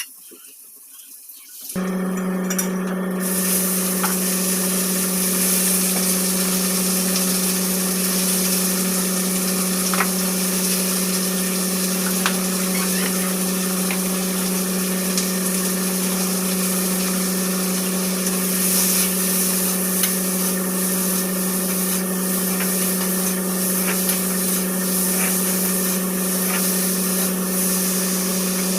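A running electric motor: a steady, even-pitched hum under a constant rushing hiss, starting about two seconds in, with a few faint ticks.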